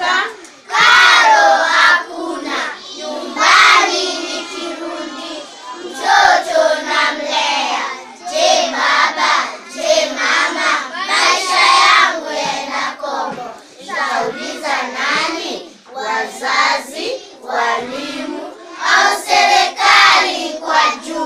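A class of young children chanting a poem together in unison, in a loud sing-song rhythm.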